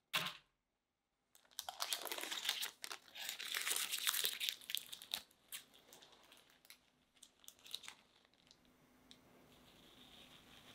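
A baked sponge cake drops out of its round metal pan onto a wire cooling rack with one sharp knock. A few seconds of dense crinkling and tearing crackles follow as parchment lining paper is peeled off the cake and crumpled. The crackles thin out to a few light ones.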